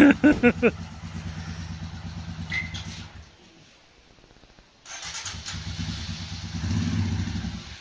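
Royal Enfield Himalayan single-cylinder motorcycle engine idling, then dying away about three seconds in. About a second and a half later it is started again and idles, with a brief rise in revs near the end.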